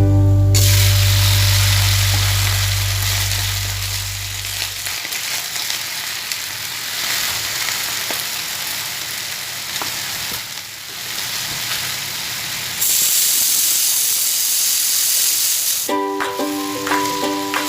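Food sizzling in hot oil in a pan, a steady frying hiss that gets louder about three-quarters of the way through. Background music fades out at the start and comes back near the end.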